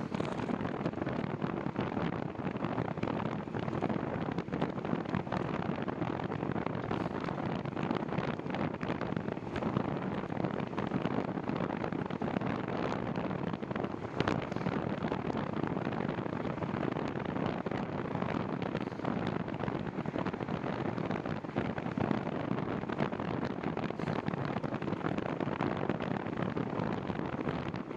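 Steady wind noise rushing over the microphone while riding a bicycle, with a few faint clicks.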